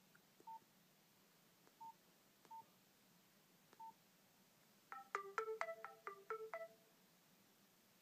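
Nokia Asha 210 keypad tones: four short single-pitch beeps, each with a faint key click, as the menu is scrolled. About five seconds in, the phone's 'Calendar alarm 1' alert tone plays: a quick run of about ten bright, short notes lasting about two seconds.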